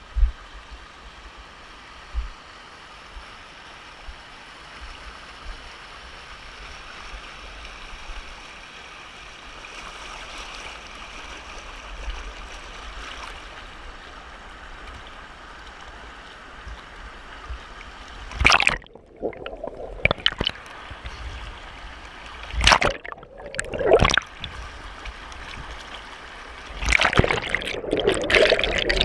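Steady rush of waterfall water. From a little past halfway come loud splashes close by, with the sound briefly muffled between them, and constant nearby splashing near the end.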